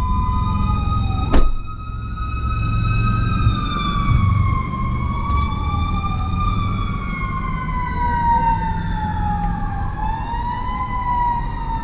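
Emergency vehicle sirens wailing, their pitch slowly rising and falling, with two siren tones overlapping at times, over a steady low vehicle rumble. A single sharp knock sounds about a second and a half in.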